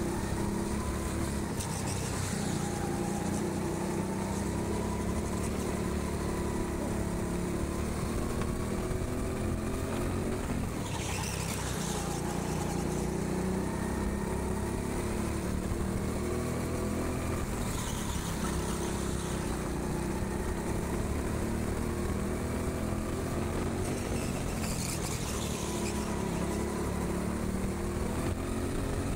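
Go-kart engine heard from onboard at racing speed, its pitch rising and falling as the throttle opens and closes through the corners. Brief hissing bursts come a few times, roughly every seven seconds.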